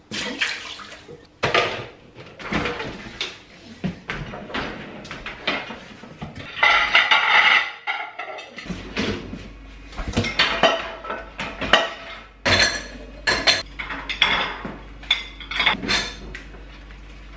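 Cups, crockery and cutlery clinking and knocking at an open dishwasher as dishes are handled in and out of its wire racks, in a run of irregular sharp clinks.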